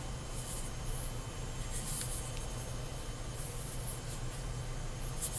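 Faint scratchy handling noises from a handheld flashlight being turned over in the hands: a few brief rustles of fingers rubbing the body, over a steady low hum.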